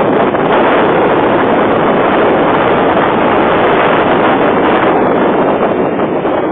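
Loud steady rush of wind on the camera microphone, mixed with the roar of surf breaking on the beach.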